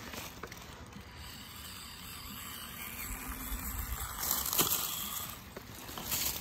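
Axial SCX24 micro RC crawler's small electric motor running faintly as the truck climbs a rock. In the second half, dry leaves rustle and crunch.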